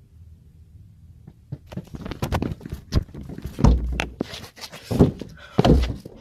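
Starting about a second and a half in, a chaotic handheld recording of rustling and scraping, broken by a rapid run of sharp knocks and heavy thuds. The loudest thuds fall about two seconds apart, like blows against a car.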